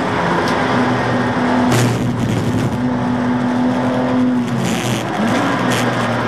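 BMW Z4 Coupe race car's straight-six engine heard from inside the stripped cabin under load, its note holding steady, then dropping briefly about four and a half seconds in and climbing again. A short rush of noise cuts across it about a second and a half in.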